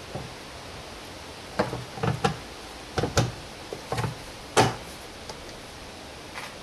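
Plastic rear light cluster being pushed into its recess in the car body by hand. It gives a run of short knocks and clicks over the first five seconds, the loudest about four and a half seconds in.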